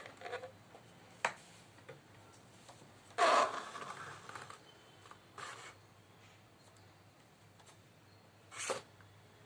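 Scraping and light knocks as the bucket of a homemade model hydraulic excavator is worked, with the loudest scrape about three seconds in and short knocks before and near the end.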